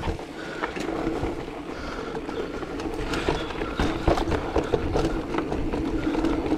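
Giant Trance E+2 electric mountain bike ridden over a rough trail: rattling and sharp knocks from the bike over bumps, with a low rumble and a steady hum that grows louder near the end.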